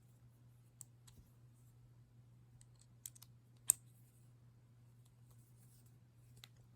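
A few light clicks and taps of jewelry being handled, a bangle knocking against other pieces, the sharpest about three and a half seconds in, over a steady low hum.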